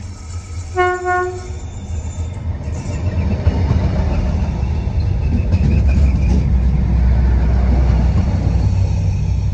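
A Sprinter Siemens Desiro diesel multiple unit sounds a short horn toot about a second in, then its underfloor diesel engines and wheels rumble louder and louder as it passes close by, loudest a couple of seconds before the end.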